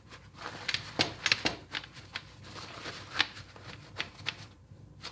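Paper kitchen towel rustling and dabbing against a marinated beef roast as it is patted dry, with irregular soft taps and clicks, a cluster of sharper ones about a second in.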